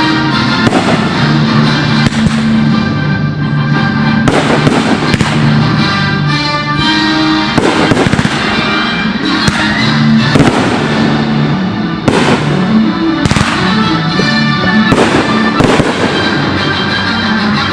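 Fireworks bursting one after another, a bang every second or two, over loud music.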